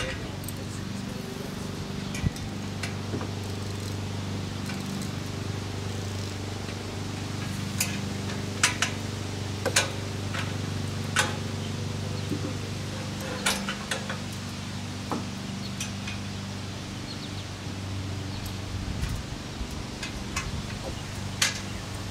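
Scattered sharp metal clinks and knocks as steel swing-set frame tubes are handled and fitted together, over a steady low hum.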